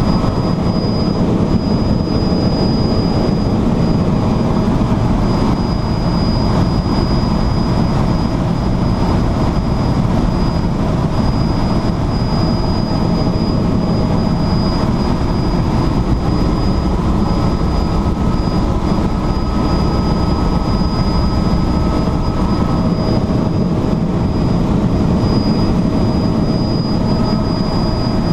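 Tour helicopter in flight, heard from inside the cabin: a steady, loud engine and rotor drone with a thin, constant high whine.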